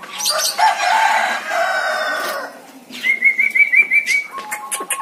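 Jalak kebo (Javan myna) calling: a harsh, rooster-like crow for about two and a half seconds, then about three seconds in a quick trill of about six notes, followed by a run of sharp clicking notes.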